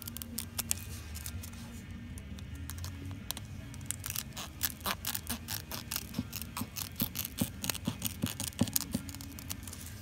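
Scissors snipping through the Velcro backing of embroidered patches, trimming the edges even: a long run of short, crisp snips, thickest in the second half, over a steady low hum.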